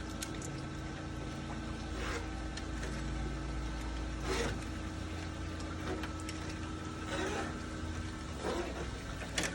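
Hand tools working screen mesh into or along a metal patio-door frame: about five short scraping strokes, one every one to three seconds, over a steady low hum.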